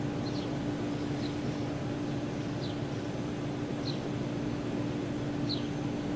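Steady outdoor ambience: a constant low motor hum over an even hiss, with about five brief high chirps from a small bird, each sliding down in pitch, spaced a second or so apart.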